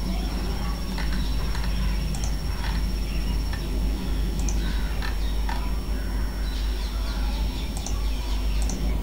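Steady low background hum, with short, faint, high-pitched chirps or ticks scattered through it and a thin high whine that stops near the end.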